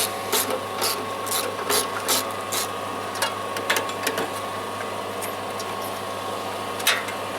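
Hand tools working on metal parts: sharp clicks, about two a second for the first few seconds, then a few scattered ones, over a steady hum.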